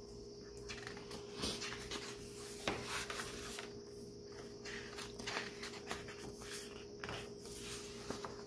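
Pages of a hardcover photo book being turned and handled: scattered soft paper rustles and light taps, the sharpest about two and a half seconds in, over a faint steady hum.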